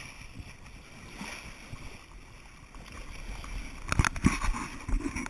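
Steady rush of water along the hull of a moving boat. About four seconds in, a few sharp knocks and a louder rush of splashing.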